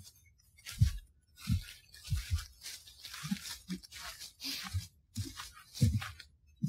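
Footsteps crunching through dry fallen leaves, irregular and about two a second, each a low thud with a short crackle. The recording has been heavily noise-reduced.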